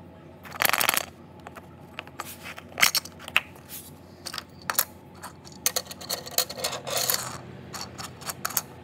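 Hard plastic toys handled on a wooden floor: a run of sharp clicks and knocks as a plastic egg-shaped figure is pulled apart and a toy train is lifted out and set down, with two short stretches of scraping, about half a second in and again around six to seven seconds in.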